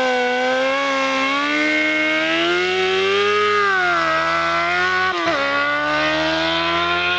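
Honda CBR600F4i sportbike's inline-four engine held at high revs during a rolling burnout, the rear tyre spinning on the asphalt. The engine note wavers and rises, falls off, then dips sharply about five seconds in before climbing again.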